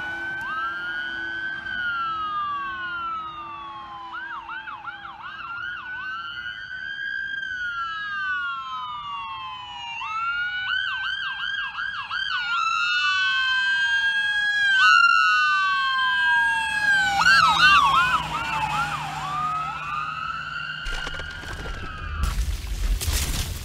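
Electronic sirens of responding emergency vehicles, switching between a slow rising-and-falling wail and a fast yelp, with two sirens overlapping at times; they grow louder to a peak a little past the middle, then ease off. Near the end the sirens give way to loud crashing noises.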